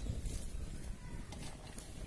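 Faint handling sounds of a hand mixing chopped onions into wet urad dal batter in a steel pot, with a few light clicks.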